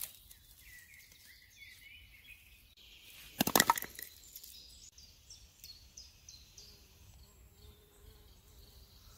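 Quiet woodland ambience with birds chirping faintly. About three and a half seconds in comes one short, loud rasping burst, and near the end a flying insect buzzes faintly.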